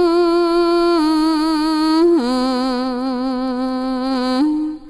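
A single unaccompanied voice chanting a Khmer Buddhist verse of homage, drawing out long wavering notes. About two seconds in it drops to a lower note and holds it, then breaks off shortly before the end.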